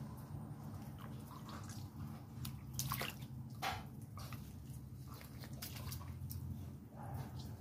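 Faint wet splashes, drips and squelches of water in a plastic basin as hands pull apart a raw plucked duck carcass, with the strongest splashes about three seconds in. A steady low hum runs underneath.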